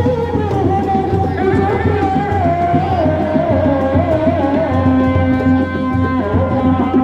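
Sundanese seni reak music: dog-dog drums keep up a steady beat under a single wavering, sliding melody line.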